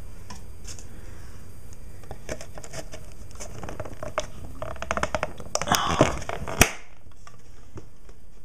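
Handling noises from unpacking: scattered light clicks and a stretch of rustling, ending in one sharp click about six and a half seconds in.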